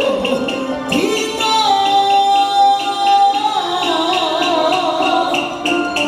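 Taiwanese opera (gezaixi) music: a melody of long held notes with a wavering pitch, over a quick, steady run of light percussion ticks.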